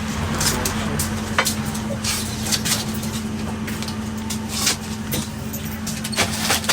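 Irisbus bus cabin on the move, heard from the front seat: a steady engine and road drone with a constant low hum, broken by frequent sharp rattles and knocks from the cabin.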